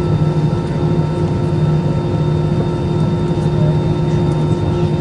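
Steady cabin noise of an Airbus A320-214 taxiing: its CFM56-5B engines at idle thrust with the air-conditioning packs running, a low drone with a few steady humming tones above it.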